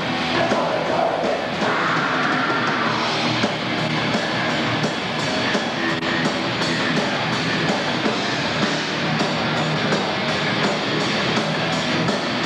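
Death metal band playing live: heavily distorted electric guitars over a drum kit keeping a steady beat, heard through a camcorder's built-in microphone.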